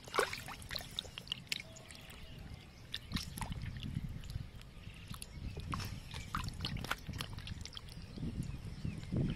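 Wet squelching and small water splashes from hands peeling the skin off raw squid in a metal basin of water, with irregular short clicks and squishes.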